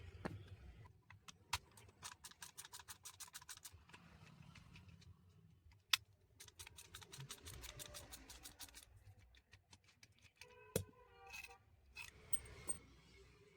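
Rapid runs of small, evenly spaced clicks with a few sharper single clicks, then a sharp metallic clink that rings briefly: hand tools and small metal parts being worked during the tile cutter's repair.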